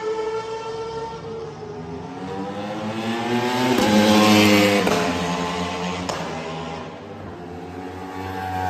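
Superbike racing motorcycle passing down the main straight at speed. Its engine note climbs in pitch and loudness as it approaches, is loudest about four seconds in, then drops in pitch and fades as it goes by. Another bike's engine rises near the end.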